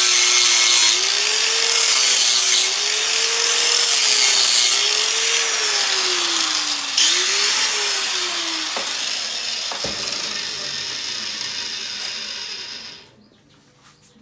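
Angle grinder with an abrasive disc grinding a steel plate, its motor pitch rising and dipping as the pressure on the disc changes. After about seven seconds the pitch slides down and the sound fades as the grinder spins down. There is a sharp click near ten seconds, and the noise stops suddenly about thirteen seconds in.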